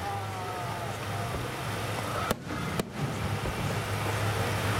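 Fireworks display: a steady noisy outdoor rumble as shells climb, broken by one sharp fireworks bang a little past two seconds in, with the sound cutting out briefly twice just after it.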